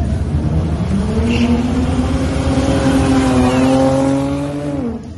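2007 Holden Commodore's engine under hard acceleration. The note climbs about a second in and holds high and steady for several seconds, then drops away suddenly near the end.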